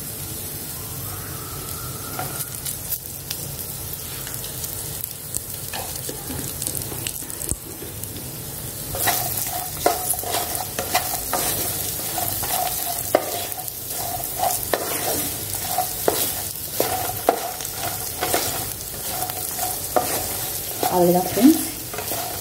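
Green cashews, curry leaves and spices sizzling in ghee in a nonstick frying pan, stirred and scraped with a wooden spatula. The stirring strokes come thicker from about nine seconds in.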